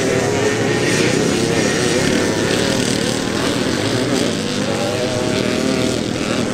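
Vintage motocross bikes' engines running hard, their pitch wavering up and down with the throttle.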